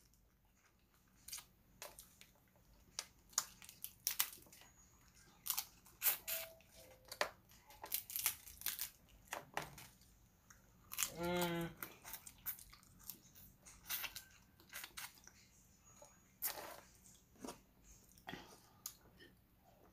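Close-up eating sounds of a person eating crab and rice with her hands: irregular wet clicks and smacks of chewing and picking meat from the shell. About eleven seconds in there is a short hummed voice sound.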